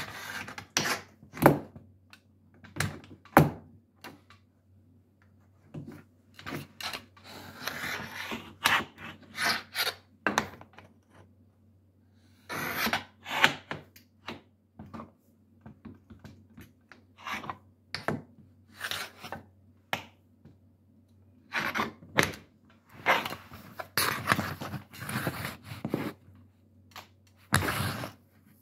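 Shoes fitted with metal taps, fidgeting: irregular clicks, knocks and scrapes of the taps in uneven clusters, separated by short pauses.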